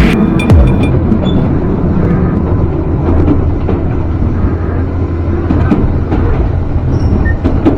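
Tobu Kameido Line train running along the track with a steady rumble. A level-crossing warning bell rings briefly at the very start as the train passes it.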